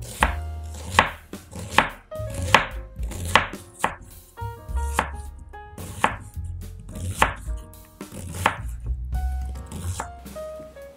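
Chef's knife slicing an onion on a bamboo cutting board: a crisp cut and tap on the wood roughly once a second, with soft background music underneath.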